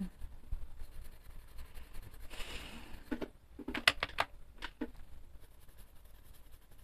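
Quiet scratching of a coloured pencil on paper, then a cluster of sharp clicks about three to five seconds in as pencils knock together in their tin while one is picked out.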